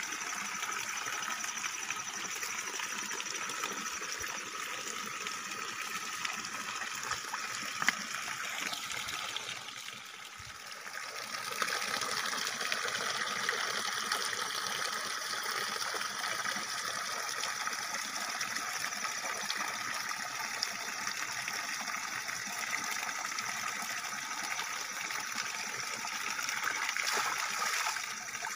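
Water pouring steadily from a pipe outlet and splashing below, briefly quieter about ten seconds in.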